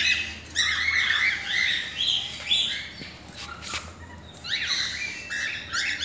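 Cockatiels calling: quick runs of short squawking chirps, rising and falling in pitch, a pause a little past halfway, then more calls; a single sharp click in the middle.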